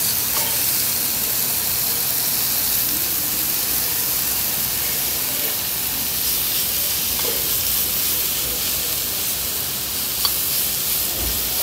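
Marinated meat and beef slices sizzling steadily on a hot Korean barbecue grill plate, with one light click about ten seconds in.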